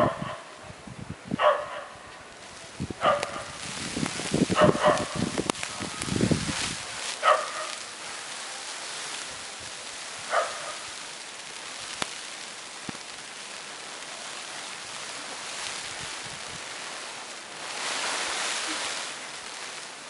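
A dog barking in short single barks, about six times in the first half, spaced a second or more apart, over the steady hiss of blizzard wind on the microphone. The wind gusts louder near the end.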